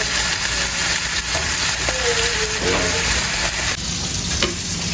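Bacon sizzling and spitting in a frying pan on a stove burner, a steady hiss that eases a little near the end, with a couple of light clicks.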